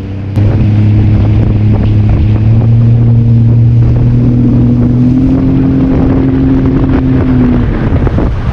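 Jet ski engine opening up to full throttle about half a second in, a loud steady drone that climbs slowly in pitch as it picks up speed, then the throttle eases off near the end.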